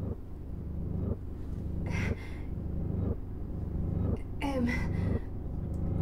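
A woozy woman's breathy gasps and a drawn-out moan, about two and four and a half seconds in. Under them runs a low, throbbing pulse about once a second that grows steadily louder.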